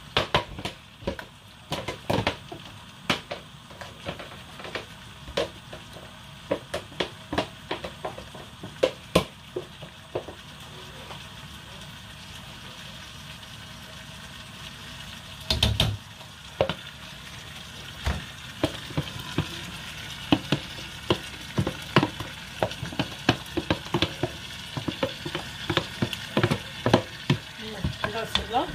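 A black plastic spoon stirring and scooping chunks of meat and boiled egg in a non-stick pot of Ofada stew: irregular clicks and knocks of spoon against pot, with a burst of scraping about halfway through, over a steady sizzle from the pot on the gas.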